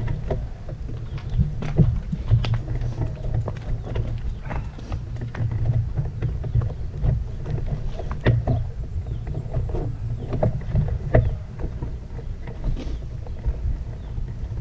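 Wind buffeting the microphone as an uneven low rumble, with scattered sharp clicks and knocks, the strongest about two seconds in and again around eight and eleven seconds in.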